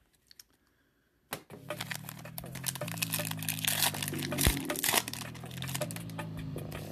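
A trading card pack's wrapper being torn open and crinkled in the hands, a dense crackling rustle that starts about a second in and keeps going.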